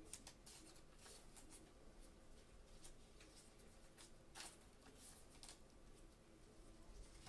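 Faint rustling and sliding of trading cards being slipped into clear plastic sleeves, with a few short crinkly scrapes, the clearest about four and five seconds in.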